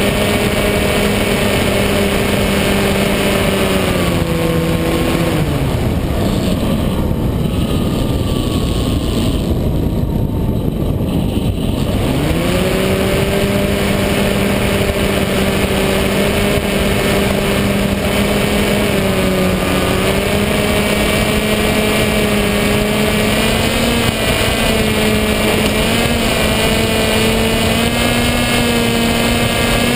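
Electric motor and propeller of a Skywalker FPV plane heard from the onboard camera, a steady whine over a constant rush of air. About four seconds in the throttle comes off and the whine drops away to almost nothing, then about twelve seconds in it rises back up, holds steady and creeps slightly higher near the end.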